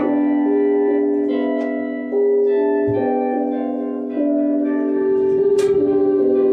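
Music: sustained melodic tones that move to new notes every second or so, the held note wavering in a tremolo near the end.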